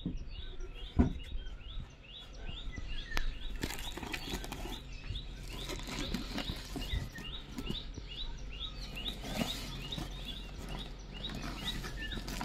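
A small bird chirping over and over, about two short rising chirps a second, with the crinkly rustle of a woven plastic sack being handled and pulled off a wooden hive box. There is a sharp knock about a second in.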